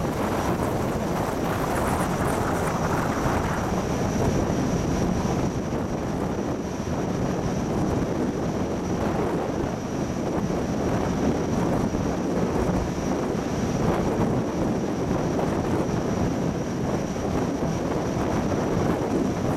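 Water-jet fast supply vessel running at speed: a steady rush of jet wash and wake over the drone of its four MTU 16V4000 diesel engines, with wind on the microphone.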